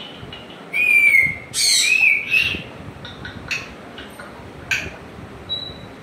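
African grey parrot calling: two loud whistled calls about a second in, the second one wavering in pitch, followed by several short, sharp chirps.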